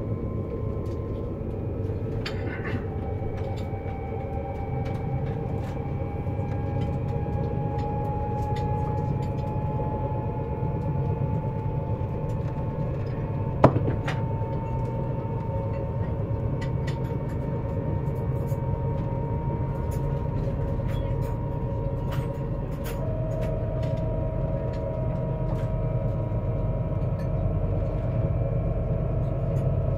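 Siemens Velaro E320 (Eurostar Class 374) traction inverter whining as the train accelerates on 25 kV AC, over a steady low rumble of the running train. The whine glides slowly upward, then steps down to a lower tone about two-thirds of the way through as the IGBT inverter changes its switching pattern. There is one sharp click near the middle.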